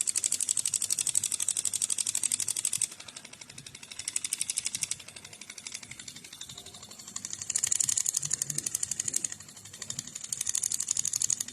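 Handpiece of a facial introducer machine clicking rapidly and evenly while held pressed on the skin. The clicking comes in bursts of one to three seconds with quieter gaps between, four times.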